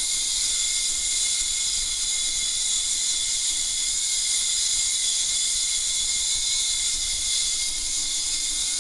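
Ultrasonic emitter's waveguide running in water with wax: a steady, loud, high-pitched hiss with a thin constant tone near 2 kHz, the cavitation noise of the ultrasound whipping the wax and water into an emulsion.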